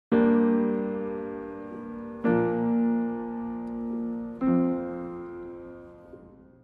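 Piano music: three chords struck about two seconds apart, each left to ring and die away, the last fading out near the end.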